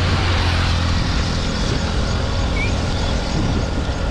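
Highway traffic: a heavy vehicle such as a truck passing, its low engine hum strongest for about the first second, over a steady rush of road noise.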